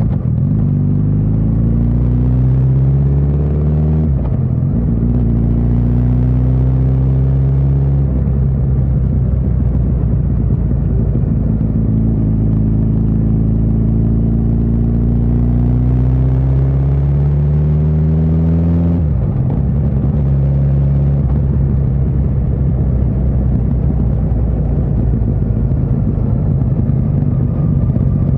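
Suzuki GSX1300R Hayabusa's inline-four engine accelerating through the gears. The pitch climbs and drops at a shift about four seconds in and again about eight seconds in, then climbs for a long stretch until another shift near nineteen seconds, after which it runs steadily.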